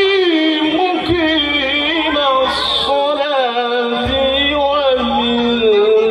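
A man chanting Arabic in a melodious, ornamented style into a microphone, holding long notes that bend up and down, amplified through a PA: Rawi (maulid prose) recitation.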